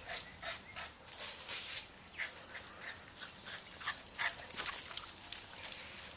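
Boston terrier making short, irregular dog noises, a string of quick sounds during excited play with a floppy Frisbee.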